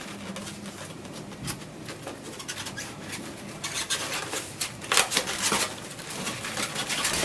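Cardboard divider pieces being slid and slotted together, rubbing and scraping against each other, with a run of louder short scrapes in the second half.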